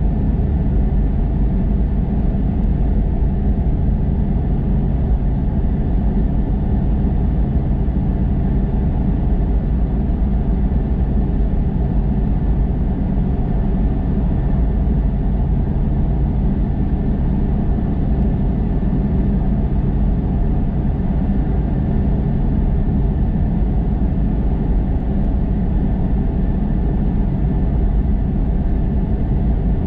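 Car driving at a steady speed: a continuous, even rumble of engine and road noise.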